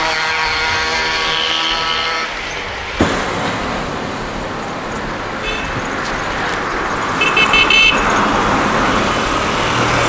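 Street traffic noise with a vehicle horn: a steady horn tone for about the first two seconds, a single knock about three seconds in, then road noise with short, high, rapid beeps in the middle and near the end.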